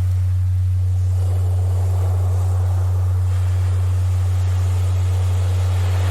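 A steady, loud low-pitched tone of a Rife frequency track held without change, over ocean surf whose waves swell and recede; the surf is softer in the first second or so and rises again near the end.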